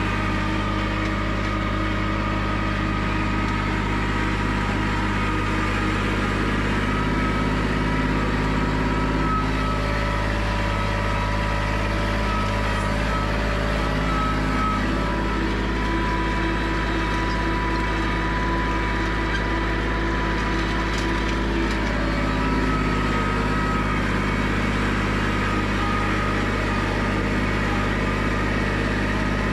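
Compact diesel tractor engine running steadily while the tractor is driven across a field, with a steady faint whine over the engine note.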